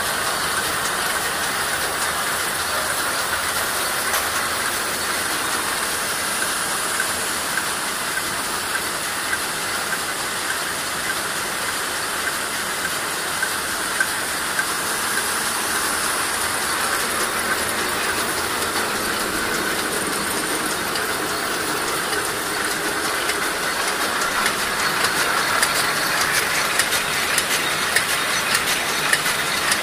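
Industrial production machine running: a steady mechanical clatter of gears, shafts and rollers, with sharper regular clicking growing louder near the end.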